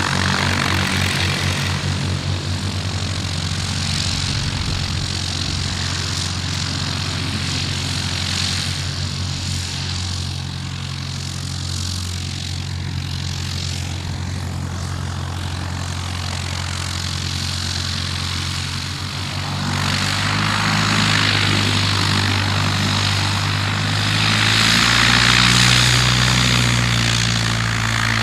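Piston engine and propeller of a Piper PA-28-type light aircraft running steadily at taxi power. About twenty seconds in, a second aircraft of the same type is heard, growing louder as it taxis close by.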